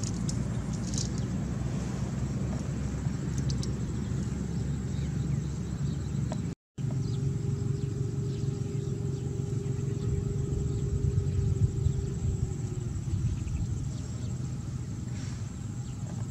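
A steady low rumble, with a brief dropout about halfway through and then a faint steady hum that fades out a few seconds later.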